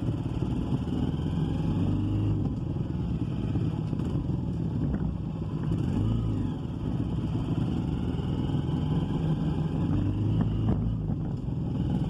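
Small motorcycle engine running steadily while riding along a dirt forest trail, the engine note shifting a little up and down with the throttle.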